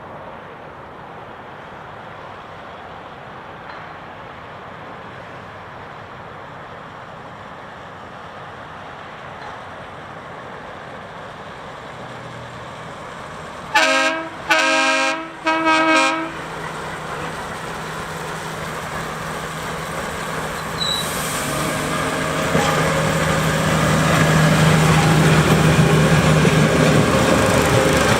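Rail maintenance-of-way machine approaching on the track: a low running rumble grows steadily louder. About halfway through its horn gives three short blasts, followed by a steady engine hum that keeps building toward the end.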